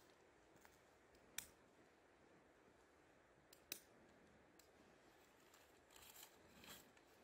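Near silence with faint hiss, broken by two sharp clicks, one about a second and a half in and one a couple of seconds later, then a few soft rustling handling noises near the end.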